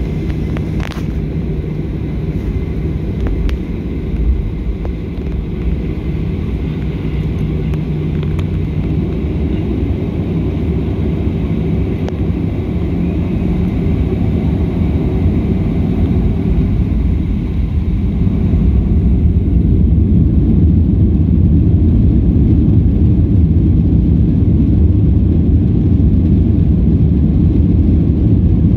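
Cabin rumble of a Boeing 737 jet airliner rolling on the ground, steady at first and growing louder about two-thirds of the way through as engine thrust comes up for takeoff.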